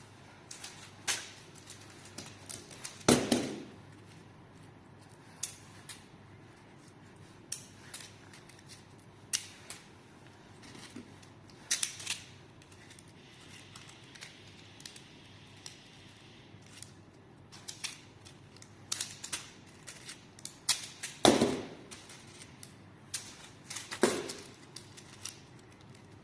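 Worm fidget toy being handled, giving irregular sharp clicks and snaps, with louder snaps about three seconds in and twice near the end.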